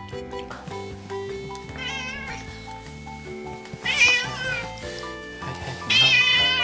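Ginger cat meowing three times: a faint meow about two seconds in, then two loud, longer meows about four and six seconds in, over background music.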